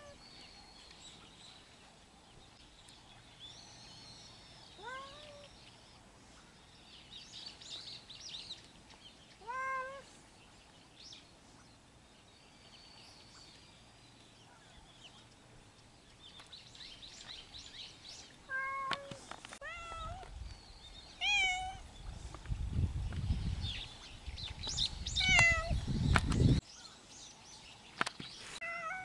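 Stray cat meowing: short, upward-bending meows every few seconds, then several in quick succession in the second half. A loud low rumbling noise runs under the meows for several seconds near the end.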